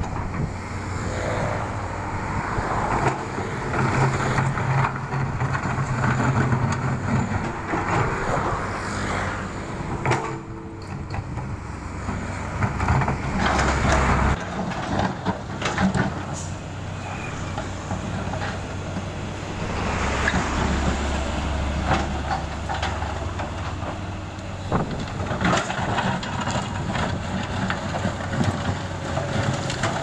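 Komatsu PC200 excavator's diesel engine running under working load, louder in stretches as the arm and bucket move, with scattered knocks and scrapes of the bucket against broken asphalt. Road traffic passes alongside.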